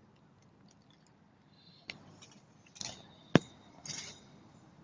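A few scattered clicks and short rustles, with one sharp metallic clink about three and a half seconds in that rings briefly.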